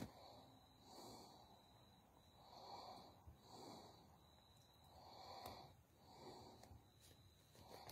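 Very quiet: soft breathing close to the microphone, a breath about every second, over a faint steady high tone.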